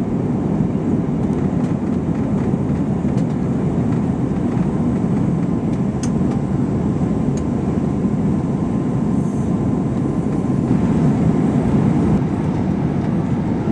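Cabin noise inside an Airbus A321-231 airliner: the steady, deep rumble of its IAE V2500 jet engines and the airflow past the fuselage, with a faint steady hum. It gets a little louder and brighter about eleven seconds in.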